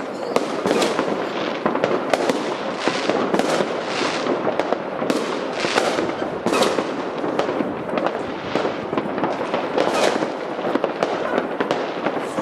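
Fireworks going off in a dense, continuous barrage: many overlapping bangs and crackles with no break.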